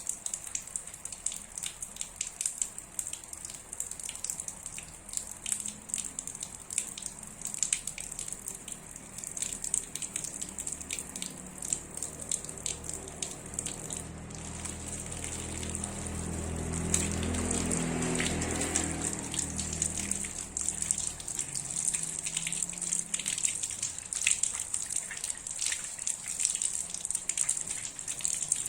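Water running from a tap and splashing, with a dense patter of drops. It grows louder and fuller for a few seconds past the middle, then settles back.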